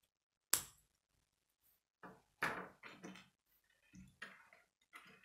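Plastic K'nex pieces handled and snapped together: one sharp click about half a second in, then several short clatters as pieces are picked from a loose pile.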